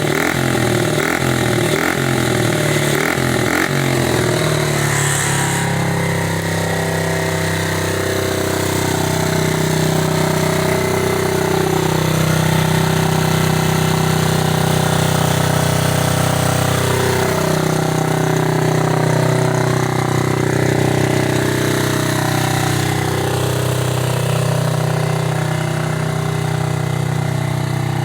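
Small 50cc pit bike engine, its top end freshly rebuilt and fitted with a new carb, running. It pulses unevenly at first, then runs steadier, with the pitch dropping and rising a couple of times.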